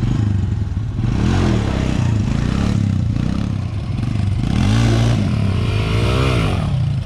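Small off-road engines of a dirt bike and a sport quad running and revving close by, the pitch rising and falling several times, with the biggest rev swings about five and six seconds in.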